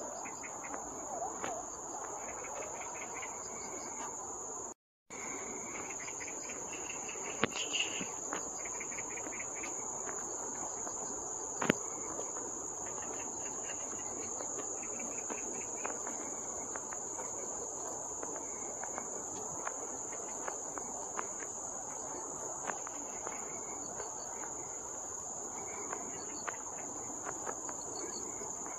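Insects chirring in a steady high tone, with a lower pulsed chirping coming and going over it. The sound cuts out completely for a moment about five seconds in.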